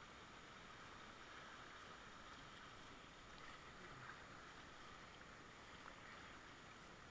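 Faint, steady rush of river rapids around a whitewater kayak paddling downstream, with a few light ticks through it.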